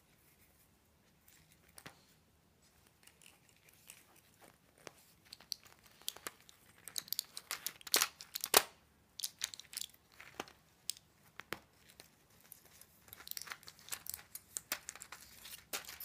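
A tabby cat biting and chewing at plastic pill packaging, making crinkling, crackling clicks. They start sparse, grow dense and louder about six seconds in, and come again in a second spell near the end.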